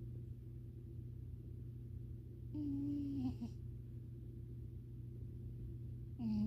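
American Ringtail cat snoring in its sleep: short, humming snores about a second long come roughly every four seconds, one around the middle and another starting near the end, over a steady low hum.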